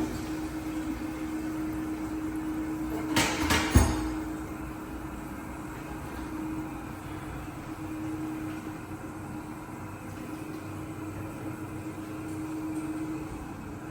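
A quick cluster of sharp knocks and clatter about three seconds in, over a steady low hum in a small tiled room.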